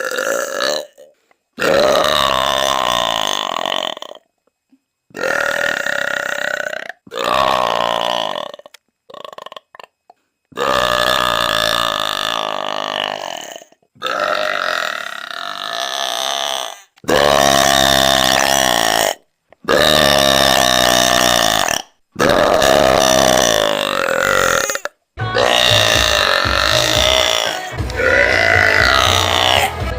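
A woman belching like a man: about ten long, loud belches in a row, each lasting one to three seconds, with short pauses between them.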